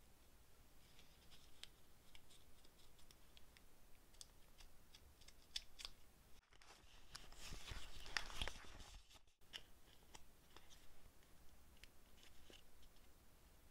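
Faint paper rustles and small taps as journal pages and a sticker are handled. From about six and a half seconds in, scissors snip through paper for about three seconds, the loudest part.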